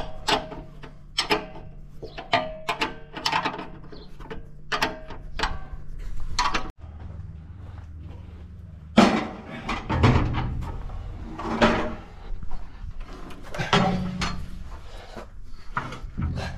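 Irregular metal clanks, knocks and scrapes of hand tools and parts being worked on a combine harvester, over a steady low hum.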